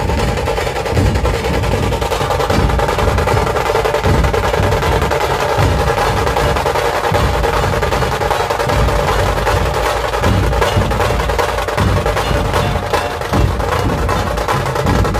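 Dhol-tasha ensemble drumming: large barrel dhols beaten with sticks under small tasha drums struck with thin sticks. The drumming is loud, dense and unbroken.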